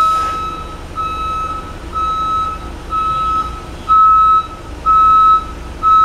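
Electronic reversing alarm beeping steadily: a single-pitch half-second beep about once a second, over the low rumble of an idling engine.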